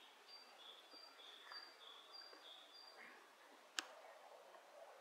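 Faint song of a great tit: a two-note phrase, a short high note alternating with a longer lower one, repeated about five times. A single sharp click comes a little before the end.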